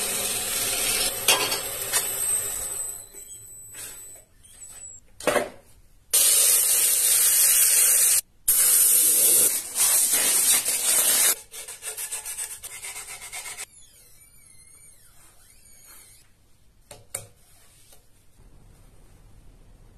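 Woodturning on a lathe: a gouge cutting and scraping the wood of a spinning juniper bowl, heard as loud rasping bursts with quieter pauses between them.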